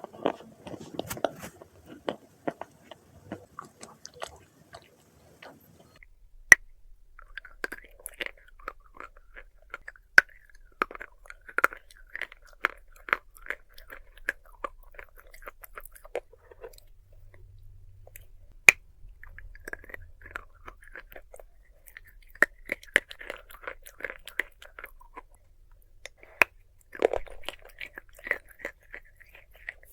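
Dry red clay being bitten and chewed close to the microphone: soft, irregular crunches with a few sharper snaps of pieces breaking.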